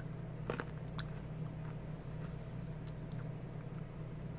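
Hard candy cane being bitten and crunched between the teeth: a few sharp cracks, most in the first second and one more near the three-second mark, over a steady low hum.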